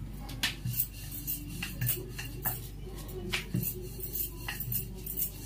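Dishes and utensils clinking and tapping irregularly, about ten short sharp knocks.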